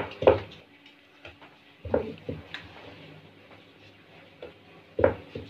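Wooden rolling pin rolling and knocking on a wooden board as dough is rolled out, with dull knocks in pairs about two seconds and five seconds in, over a faint steady hum.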